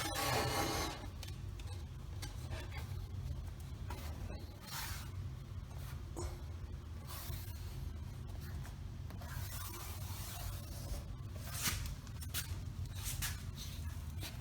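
Intermittent rubbing and scraping of hand work on laminate stair pieces: short scrapes come now and then over a steady low hum, with a louder rubbing stretch at the very start.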